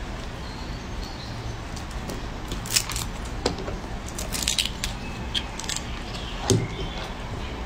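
Brittle lychee shell crackling and clicking as a baby monkey bites and peels it, in scattered bunches of short sharp cracks over a low steady hum.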